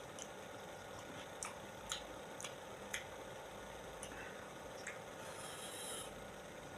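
Faint eating sounds from someone eating fruit: soft mouth clicks and smacks, several about half a second apart, over a steady background hiss.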